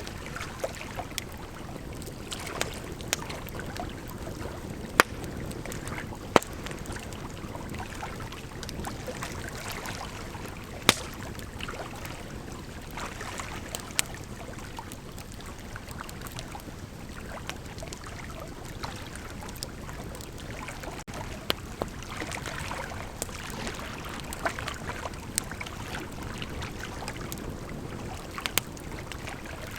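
Bonfire burning: a steady rushing hiss with irregular sharp crackles and pops of burning wood, a few of them much louder than the rest.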